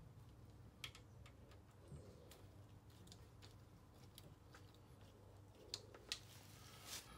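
Faint, scattered clicks of a ratchet wrench being worked back and forth, undoing the bolts of a tractor's cast-iron sump.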